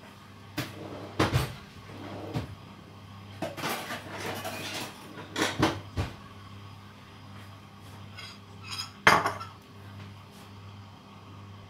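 A utensil knocking and scraping against a pot while boiled potatoes are being mashed, in irregular clatters. The loudest knock comes about nine seconds in.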